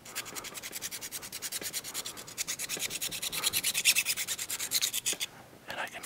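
A small needle file rasping inside the bore of a 3D-printed plastic pencil body in rapid, even strokes, stopping about five seconds in. The bore is being sanded just enough for a snug, non-wobbly fit of the eraser dock and clicker button.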